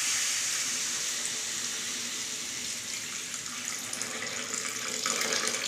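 Water poured in a steady stream into a steel kadhai of fried chicken masala, splashing into the thick masala as the curry's gravy is added.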